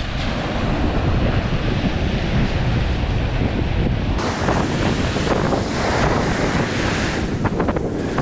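Wind blowing on the microphone over the steady wash of surf breaking on the shore.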